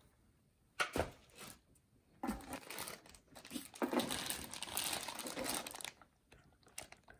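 A sharp knock about a second in, then clear plastic packaging crinkling as a wrapped pack of vacuum dust bags is lifted and handled.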